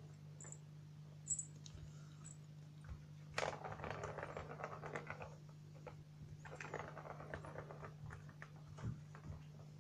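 Plastic ball rattling around a round cat track toy as kittens bat at it, in two clattering spells of about one to two seconds each, with a few light clicks before them.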